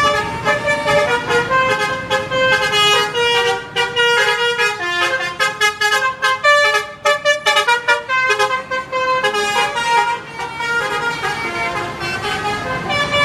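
Basuri musical bus horn playing a melody: a continuous run of quick pitched horn notes stepping up and down, with a few held notes.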